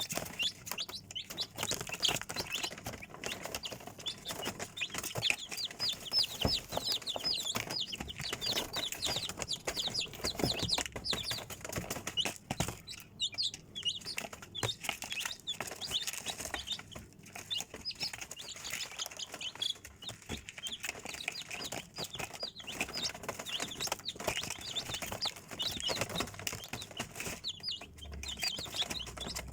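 A brood of chicks peeping continuously: many short, high cheeps overlapping in quick succession, with scattered faint clicks.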